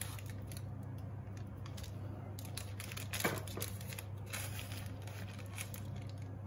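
Knife blade sliding under a brownie square on baking paper, scraping and crinkling the paper as the piece is lifted out, with a short, sharper scrape about three seconds in.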